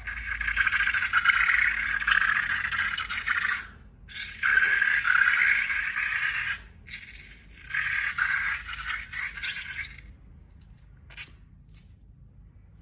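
A rough scraping, hissing noise in three long bursts of two to four seconds each, with short breaks between them; it stops about two seconds before the end, leaving only a few faint ticks.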